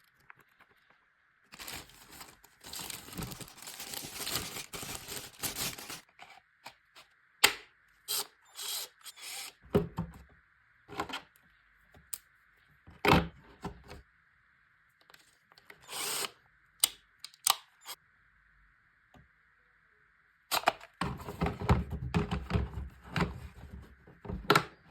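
Unboxing and handling noises: packaging rustling and tearing, with scattered sharp clicks and knocks of plastic parts being handled.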